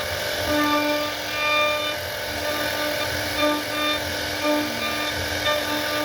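CNC router machining wood: a steady hiss of cutting with whining tones from the machine that break off and come back every half second or so as it moves.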